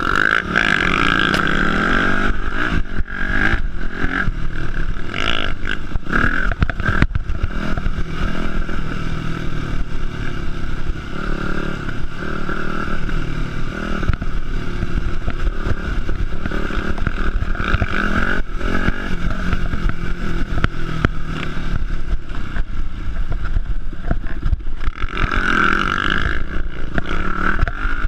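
Yamaha dirt bike's engine running under throttle on a rough dirt trail, its note swelling and easing with the throttle, heard close up from a camera mounted on the bike. Frequent short knocks, rattles and buffeting from the bike bouncing over the ground.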